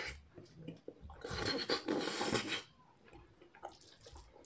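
Mukbang eating sounds: a loud, wet slurp about a second in, lasting about a second and a half, amid quieter chewing and mouth clicks.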